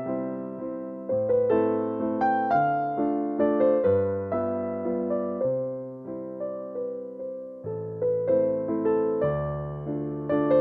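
Background piano music: a slow melody of struck notes over low held chords, each note fading after it is played.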